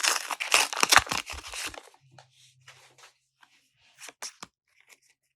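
A foil Pokémon card pack wrapper being torn open, a crinkling tear for about two seconds, followed by faint rustles and clicks of the cards being handled.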